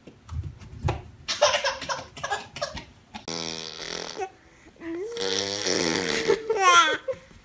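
Short bursts of laughter, then a baby's drawn-out high-pitched vocalising that wavers and glides up into squeals near the end.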